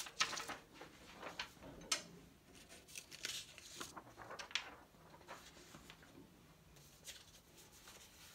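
A large sheet of chart paper being flipped over: a run of rustles and sharp crinkles over the first five seconds or so, then fainter handling of the paper.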